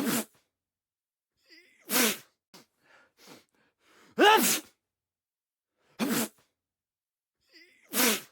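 A person sneezing, five sneezes in a row about two seconds apart, each a short sharp burst, some with a faint breath in just before.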